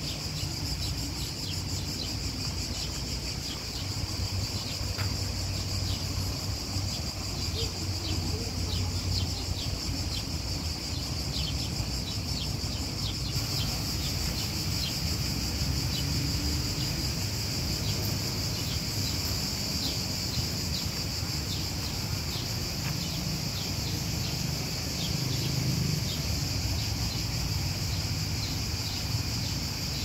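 A steady, high-pitched insect chorus buzzing without a break, with many short chirps scattered through it, over a low rumble.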